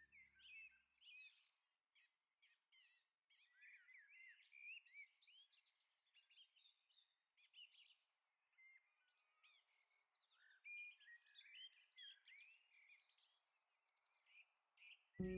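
Faint birdsong: several small birds chirping in quick, high calls over a soft hiss. Music begins abruptly right at the end.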